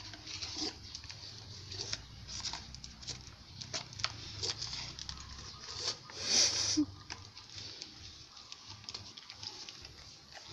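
Dog chewing and tearing at an instant-noodle cup on a tile floor: irregular crunching and crackling. A louder burst of noise comes about six seconds in and lasts under a second.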